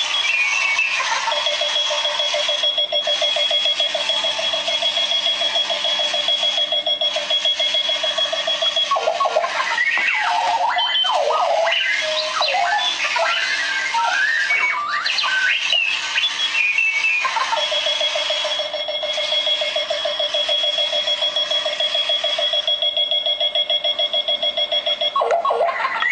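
Runaway alarm clock going off: electronic chirps that warble and glide up and down in pitch, alternating with two long stretches of a steady high tone over a fast pulsing buzz.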